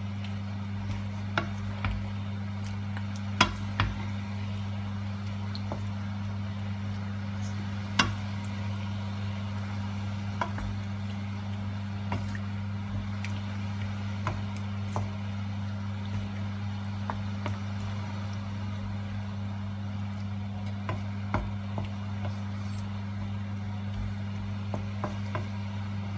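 Wooden spoon stirring chunks of chicken and pork in a nonstick frying pan: scattered clicks and knocks of the spoon against the pan and meat, the loudest a few seconds in and about eight seconds in, over a steady low hum.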